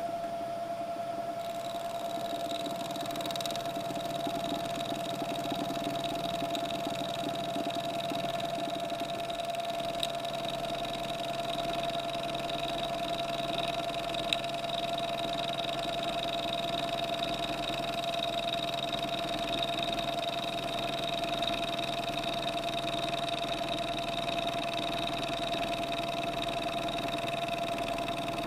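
Milling machine spindle running a corner rounding end mill through the edge of an aluminium plate lubricated with WD-40, hand-fed: a steady whine with a higher cutting sound joining about a second and a half in. The cut goes smoothly.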